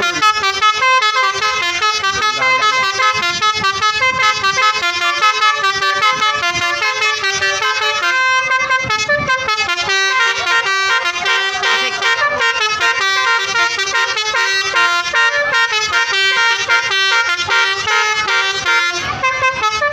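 Bus basuri musical horn playing a fast, continuous melody of short stepped notes, the 'telolet' tune of Indonesian buses.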